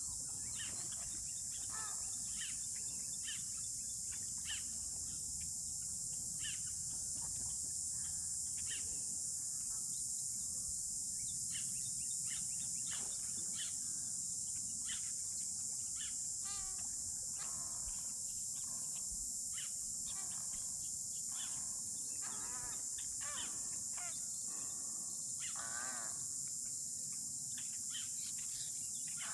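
Insects droning steadily and high-pitched, with frequent short bird chirps and a few warbling bird calls over it.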